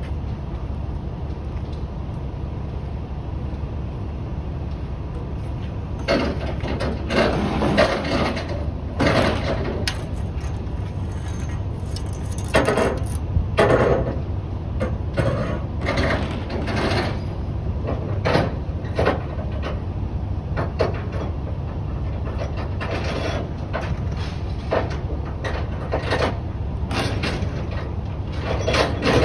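Tie-down chains being handled on a flatbed trailer: irregular metal clanks and rattles, one or two a second, starting about six seconds in, over a steady low rumble.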